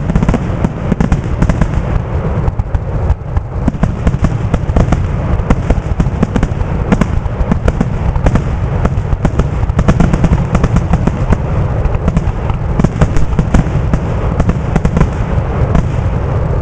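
Aerial fireworks shells bursting in a dense, continuous barrage, many loud bangs a second overlapping with deep booms.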